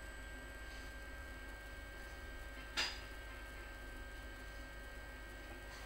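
Steady low electrical hum with a few faint thin whining tones above it, and a single sharp click about three seconds in.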